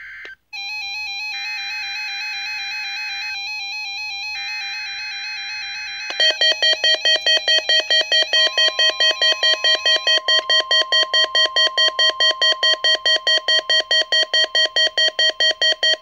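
Midland NOAA weather radio alerting for a Required Weekly Test. First come the screeching data bursts of the alert header, with short gaps between them, under a warbling tone. About six seconds in, the radio sounds a loud beeping alarm, about four beeps a second, with a faint steady warning tone joining beneath it about two seconds later.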